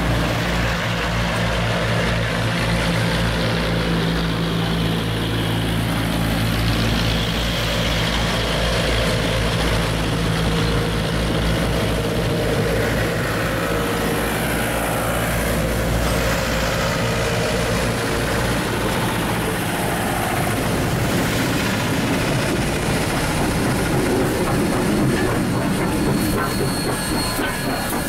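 Passenger cars of a train rolling steadily past close by, wheels rumbling on the rails. A steady low drone under it fades out after about twenty seconds.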